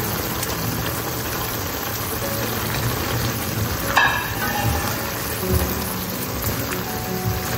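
Food frying steadily in a hot pan, with faint background music and a brief sharp knock about four seconds in.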